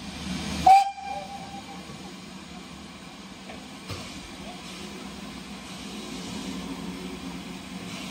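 Railway train sound: a steady rumble and hiss that slowly grows louder. A sharp, loud bang comes under a second in and a small click about four seconds in.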